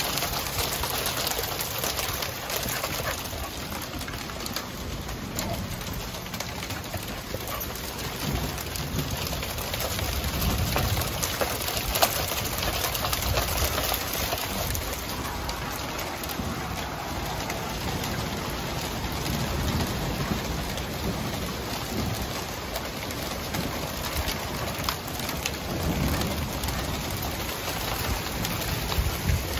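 Small hail mixed with rain falling on a wooden deck: a dense, steady patter of tiny hits over a constant hiss, with one sharper hit about twelve seconds in.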